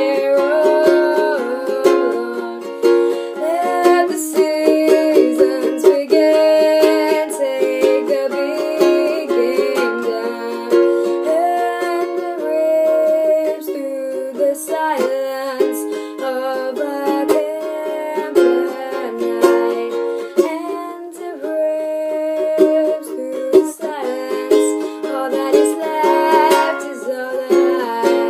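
Ukulele strummed in a steady rhythm, tuned a semitone up, with a young man singing the melody over it.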